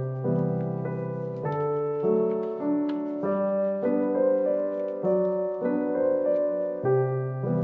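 Background piano music, a melody over chords that change about every second.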